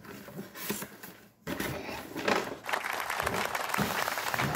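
Hands handling and rustling a cardboard box, then, after about a second and a half, a dense steady crackle of plastic packaging being crinkled.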